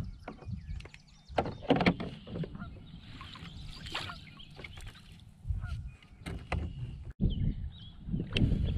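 Water splashing beside a kayak as a pike is handled and a landing net is swung and lifted out dripping, with sharp splashes about two and four seconds in. Wind rumbles on the microphone, and birds call in the background.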